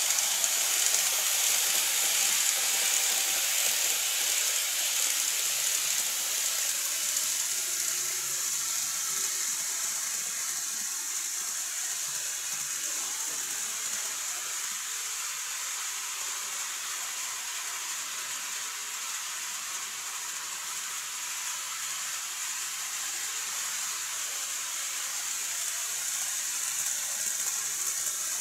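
KATO N-scale model train running on its track: a steady high-pitched hiss of the small motor and wheels. It fades as the train moves away and grows louder again near the end.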